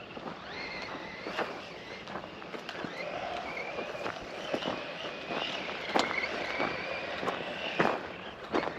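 Losi Lasernut RC truck's brushless electric motor whining, its pitch rising and falling with the throttle. Scattered sharp clicks and knocks come from the truck running over rough sand and dirt.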